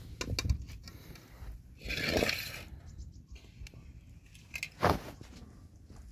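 Metal spoon stirring and scraping meat in a frying pan over a wood fire, with scattered knocks and one longer scrape about two seconds in.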